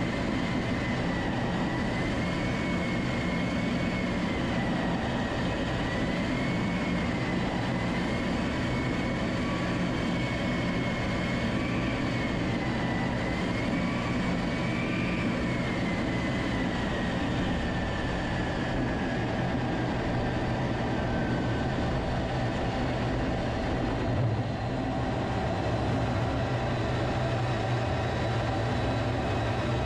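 Jet aircraft on final approach and landing, heard from a camera mounted on its outside: a steady rush of wind and engine noise with a wavering high whine that slides down in pitch as power comes back. About three-quarters of the way through comes a bump at touchdown, then the low rumble of the wheels rolling on the road.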